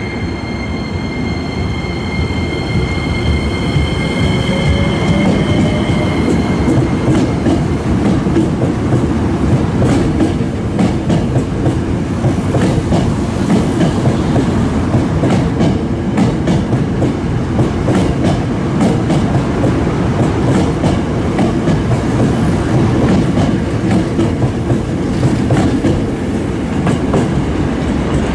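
Hankyu electric commuter trains departing together. A steady high tone sounds for about the first six seconds while a faint whine rises in pitch, then the trains pull out with a loud rumble and rapid clickety-clack of wheels over rail joints as the cars run past.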